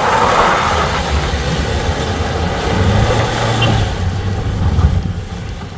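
Pickup truck driving on a dirt track, its engine running under a haze of tyre and loose-ground noise; the engine rumble grows louder past the middle.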